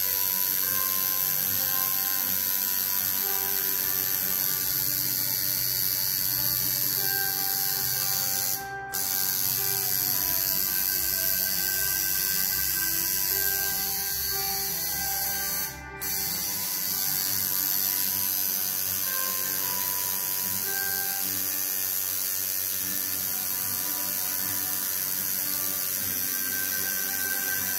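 Home-rebuilt coil tattoo machine running a single needle, buzzing steadily, with two brief dropouts.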